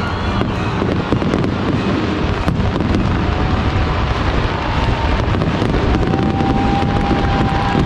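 Fireworks show going off: a dense, unbroken run of bangs and crackles over a low rumble. A steady high tone comes in about six seconds in.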